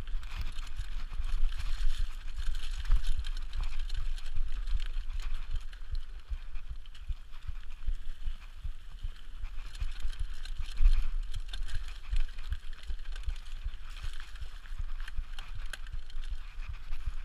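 Mountain bike riding fast down a dirt trail, heard from a camera on the bike or rider: wind rumbling on the microphone, with steady tyre noise on the dirt and frequent short knocks and rattles as the bike goes over bumps.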